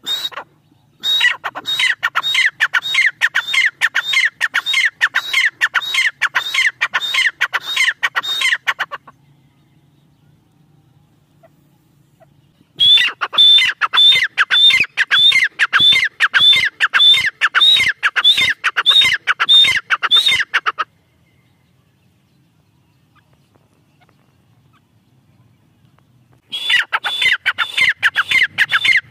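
Teetar (partridge) calling in a rapid series of harsh, falling notes, about three a second. The calls come in three long bouts separated by pauses of a few seconds. The recording is presented as a female teetar's call.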